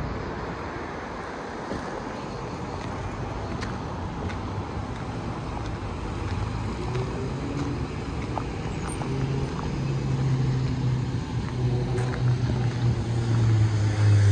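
City street traffic: cars driving past on a multi-lane avenue, a steady rush of noise that slowly grows louder, with a low steady hum coming in during the second half.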